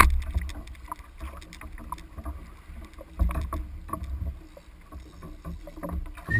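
Choppy water slapping and splashing against a kayak's hull, with irregular knocks and a low rumble.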